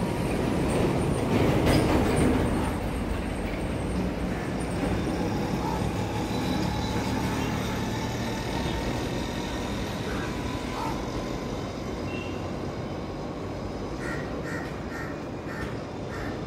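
Street traffic ambience: a steady rumble of road traffic that swells about two seconds in as a motor vehicle goes by, then eases off. A run of short, high-pitched pips repeats near the end.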